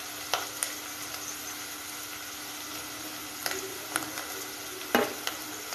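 Onions, curry leaves and turmeric frying in hot oil in a steel pot: a steady sizzling hiss, broken by a few sharp clicks.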